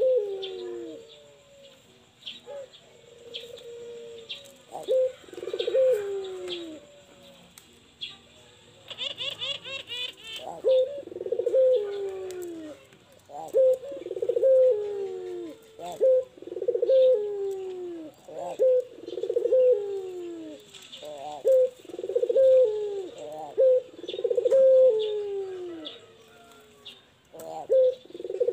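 Barbary dove (puter) cooing over and over: each call a short note followed by a long falling coo, coming in quick succession through most of the stretch. A brief high twittering cuts in about nine seconds in.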